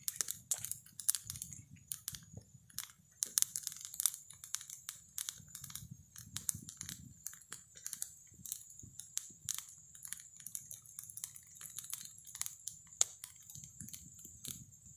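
Wood fire of twigs and green branches crackling in a metal grill box, with a steady run of irregular sharp snaps and pops.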